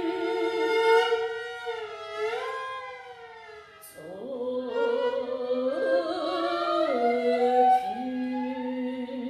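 Solo viola playing slow, sustained notes with wide vibrato. A held two-note chord slides upward and fades out about three seconds in, then a new phrase enters about four seconds in with an upward slide into low held notes that step up and down in pitch.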